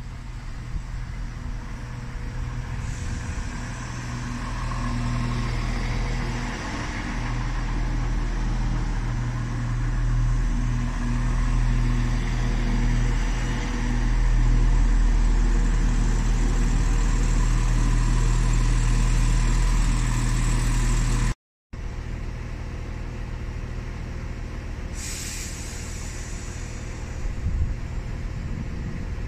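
Diesel train engine running, growing louder over the first fifteen seconds or so. After an abrupt cut about two-thirds of the way through, a quieter engine runs on, with a short hiss of air partway through.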